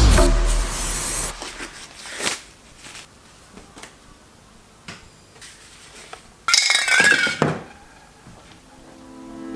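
Metal aerosol spray-paint cans being handled in a cabinet: a few light knocks and clicks, then about two-thirds of the way through a short clatter of cans clinking against each other, one ringing briefly. Electronic music cuts out at the very start.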